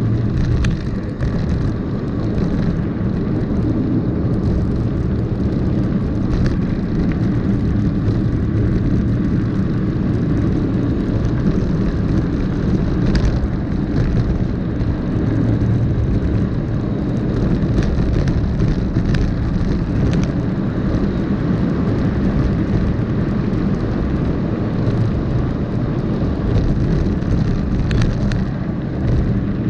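Wind rushing over the camera microphone of a moving mountain bike, mixed with the steady rumble of its tyres rolling over a dirt and gravel road. There are occasional sharp clicks as well.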